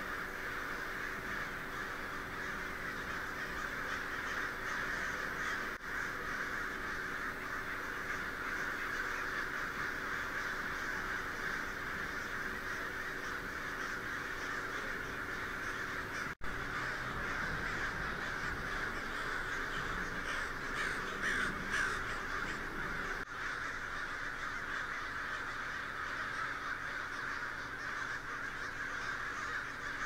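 A huge flock of crows cawing continuously overhead, so many birds at once that the calls blend into one dense, unbroken chorus. There is a brief drop-out about halfway through.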